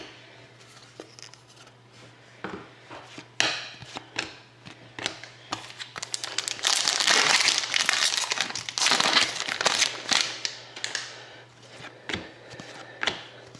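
A hockey card pack's wrapper crinkling and being torn open, with cards shuffled and handled. There are scattered rustles and clicks, and the crinkling is loudest and densest between about six and eleven seconds in.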